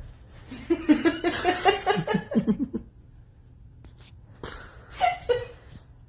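A person laughing in a quick run of pulses for about two seconds, then a shorter burst of voice about five seconds in.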